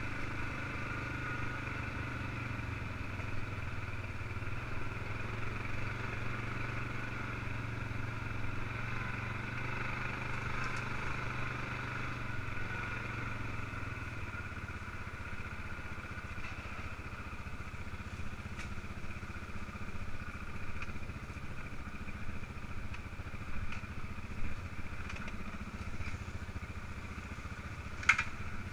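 ATV engine running steadily at low speed while riding, with light rattles and ticks and one sharp knock near the end.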